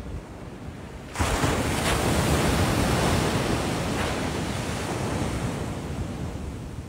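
A sea wave breaking on the beach, hitting suddenly about a second in, then washing up the sand and slowly fading.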